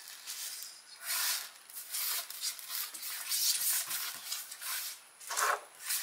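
Bilantan BirdHi plastic bird feeder being handled and tilted, birdseed shifting and rattling in its hopper and plastic parts rubbing, in a string of irregular scratchy rasps.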